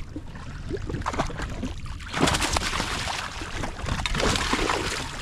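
Water splashing hard for about three seconds, starting about two seconds in: a hooked spotted mackerel thrashing at the surface as a gaff is driven in. Underneath, a steady wind rumble on the microphone.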